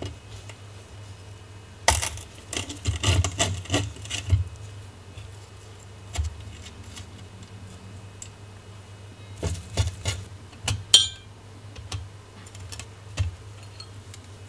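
Small metal parts of a wall clock movement clicking and clattering as it is taken apart by hand, with a cluster of clinks about two seconds in and more around ten seconds. Just before eleven seconds a small metal piece gives one short, bright ring, the loudest sound here.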